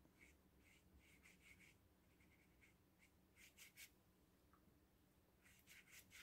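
Faint, soft scratching of a round watercolour brush stroking across cold-press watercolour paper as it lays a very pale wash, the strokes coming in short clusters.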